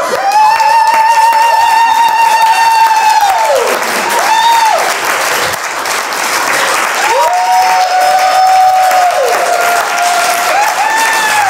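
Audience applauding at the end of a live stage performance. Over the clapping, a long, high held note sounds twice, each gliding down as it ends.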